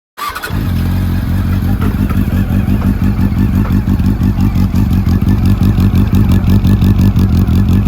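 Honda CB400 Super Bore's inline-four engine and exhaust. The sound starts abruptly just after the beginning, then runs at a steady, evenly pulsing idle.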